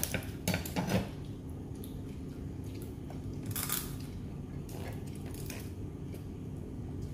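Steamed mud crab shell being cracked and picked apart by hand, with scattered small cracks and clicks and one louder crunch about three and a half seconds in, over a steady low hum.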